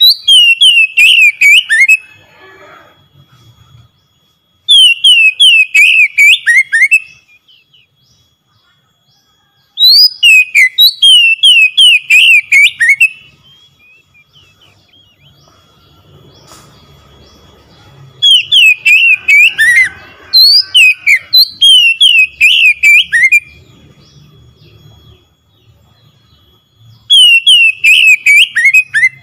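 Oriental magpie-robin singing loud phrases of rapid, sharply down-slurred whistled notes, each phrase two to three seconds long, about six phrases with short pauses between.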